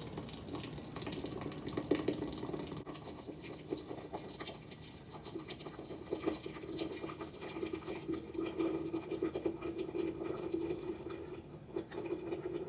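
Hot water poured in a steady stream from a kettle into a glass mason jar holding mint leaves, splashing as the jar fills.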